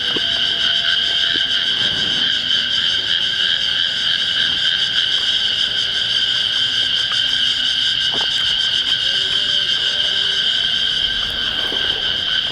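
Cicadas droning in a steady, unbroken high buzz.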